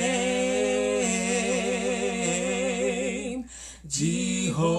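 A man and a woman singing a slow worship chorus without instruments: one long held note with a gentle vibrato, a brief breath about three and a half seconds in, then the next word, "name".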